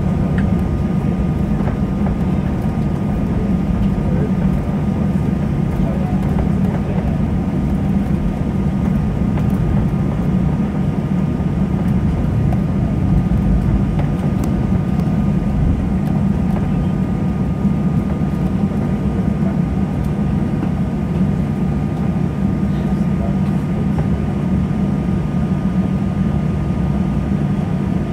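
Cabin noise of a Ryanair Boeing 737 taxiing and lining up on the runway: a steady jet engine hum at low thrust, with a thin steady whine over it.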